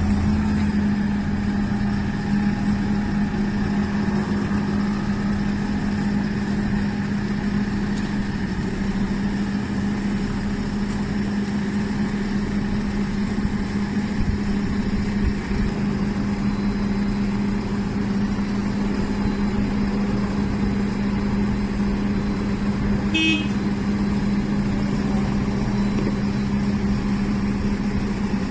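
Construction machine's engine running steadily at a constant speed, with one brief high-pitched chirp about three-quarters of the way through.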